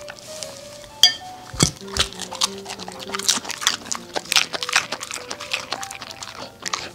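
Samoyed dog chewing and smacking its food in quick, irregular wet clicks. Its plate gives a sharp clink with a short ring about a second in. Soft background music plays underneath.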